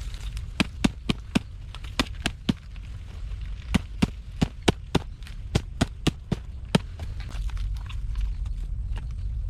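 A blade chopping wood: a run of sharp, irregular strikes, two or three a second, that stops about seven seconds in, over a low steady rumble.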